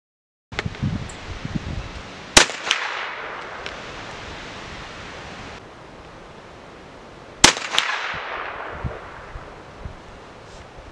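.375 H&H bolt-action rifle (CZ 550) firing two shots of a reduced cast-lead-bullet load about five seconds apart, each followed about a third of a second later by a softer second crack and a fading echo. Wind rumbles on the microphone between the shots.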